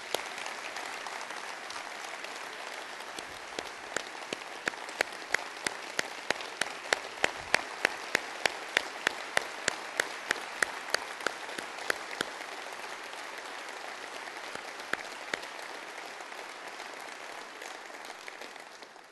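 A large audience applauding steadily. From about four to twelve seconds in, one person's loud claps close to the microphone stand out at about two a second. The applause dies away near the end.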